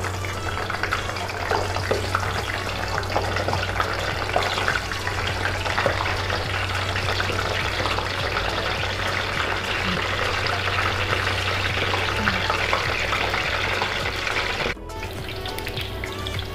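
Eggplant slices frying in hot oil in a pan: a dense, steady crackling sizzle. Near the end it drops abruptly and carries on more quietly.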